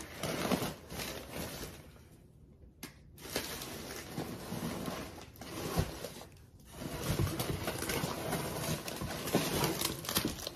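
Brown kraft-paper plant wrapping crinkling and rustling as it is handled, in irregular spells with short lulls, busiest near the end.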